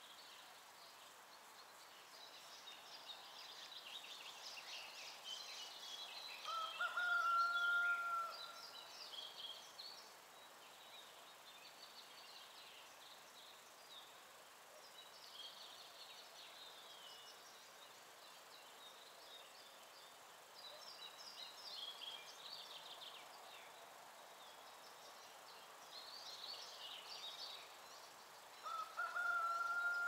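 Songbirds singing, many short high-pitched phrases overlapping and coming and going over a faint steady hiss. Twice, about seven seconds in and again near the end, a louder long steady whistle-like tone sounds for about a second and a half.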